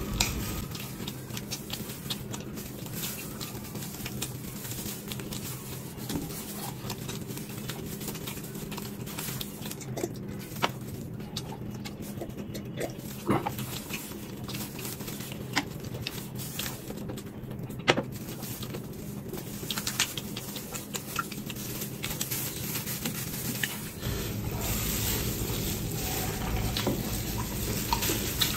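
Close-miked eating sounds: chewing, wet mouth and lip noises, with many short sharp clicks scattered throughout over a steady low hum.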